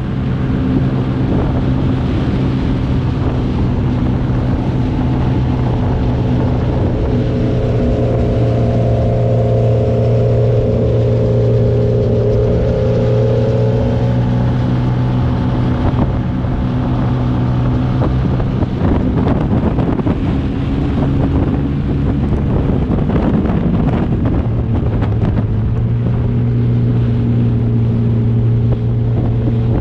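Motorcycle engine running at a steady cruise, with wind rushing over the microphone; the engine note wavers and shifts for a few seconds past the middle before settling again.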